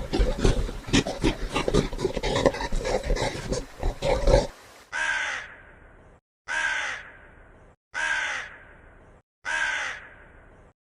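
Farm animal calls: a dense stretch of animal noise for about four and a half seconds, then four separate short calls about a second and a half apart.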